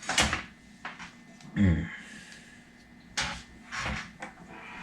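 Several short knocks and scrapes from handling the metal shifter assembly while pulling the remains of an old, deteriorated bushing out of the arm, with a brief low creak about one and a half seconds in.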